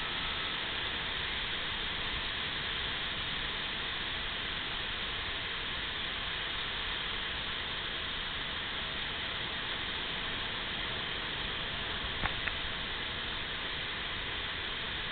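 Steady wash of distant ocean surf, a constant hiss with no single wave standing out. Two short clicks a little past twelve seconds in.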